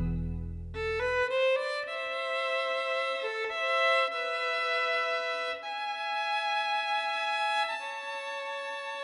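Solo violin bowing a slow melody of long held notes, one note at a time. Deeper accompanying notes fade out during the first second or so.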